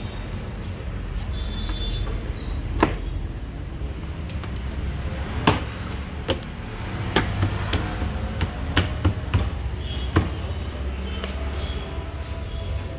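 Plastic front bumper of a Maruti Suzuki Brezza giving a scattered series of sharp clicks and knocks, about ten in all, as its edge is worked by hand at the fender clips. A steady low hum sits underneath.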